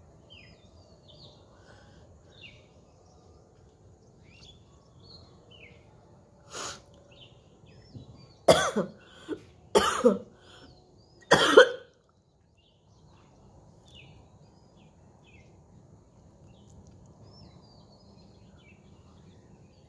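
A woman coughing and hawking up thick phlegm: one cough about six and a half seconds in, then a cluster of harsh coughs and throat-clearing hawks from about eight to twelve seconds in. The sound comes from a chest cold with thick, greenish morning mucus.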